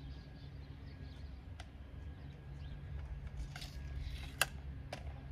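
Boards and hand tools being handled on a wooden sawhorse: short scratchy scrapes and a few sharp clicks, the loudest about four seconds in, over a low steady rumble.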